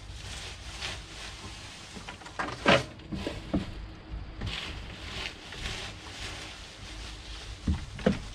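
Chopped grass, feed and mineral salt being stirred together for sheep: scattered rustles and light knocks, with one louder knock about two and a half seconds in.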